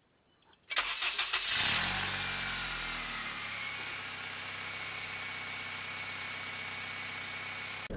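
Honda K20A four-cylinder engine starting: a brief burst of starter cranking, then it catches with a rev flare that falls away and settles into a steady idle.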